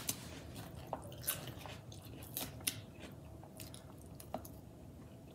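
A person eating a lettuce-wrapped burger with a fork: chewing crisp iceberg lettuce, with scattered short clicks and crunches about a second apart.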